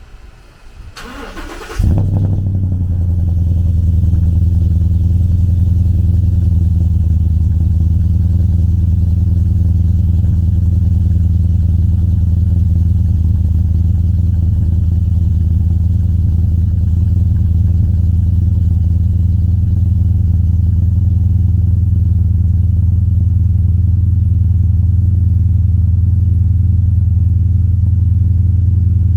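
The 2013 Ford F-150 Raptor's 6.2-litre V8 cranks briefly and catches about two seconds in, then idles loud and steady.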